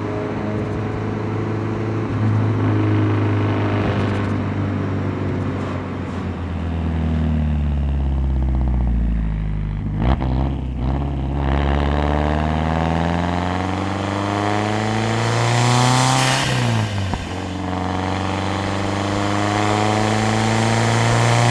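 Lancia Delta HF Integrale Evoluzione's turbocharged 2.0-litre four-cylinder through a straight-pipe exhaust, running steadily and then pulling hard: the engine note climbs in pitch three times, broken off about halfway through and again about three-quarters of the way in.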